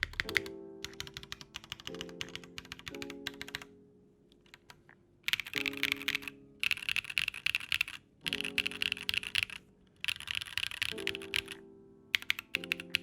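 Fast typing on a Monokei Tomo mechanical keyboard with KNCKeys Tofu switches: clacky keystrokes in quick runs of about a second each, separated by short pauses. Soft background music with sustained chords plays underneath.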